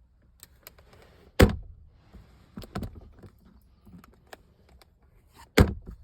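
Plastic clicks and knocks from a pickup's centre console lid and its new latch being worked, with two loud thumps about a second and a half in and near the end as the lid is shut.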